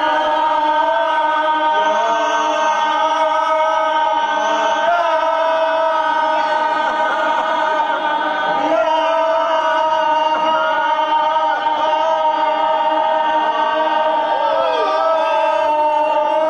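A crowd of voices holding one long, drawn-out "Yaaaam" shout of a yam seng toast at a steady pitch, wavering slightly about halfway through.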